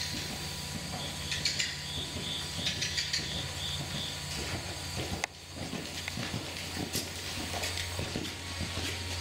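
Andalusian gelding trotting on the sand footing of an indoor arena: soft, irregular hoofbeats over a steady low hum, with a light, high rattle during the first few seconds.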